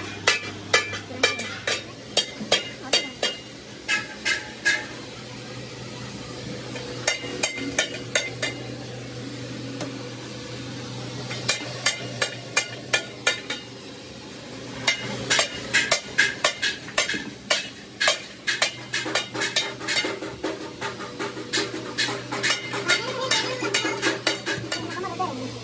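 Repeated sharp strokes of a hand tool working the inside of a large tractor tire, several a second in runs broken by short pauses.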